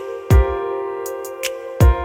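Background music: two deep kick-drum beats over held synth chords, with light ticking percussion.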